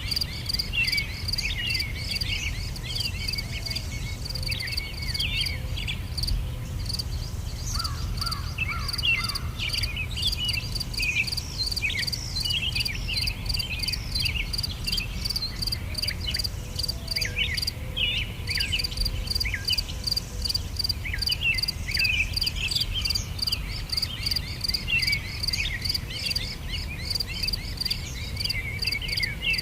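Insects chirping in a fast, steady pulse, with many short high bird chirps over it and a steady low rumble underneath.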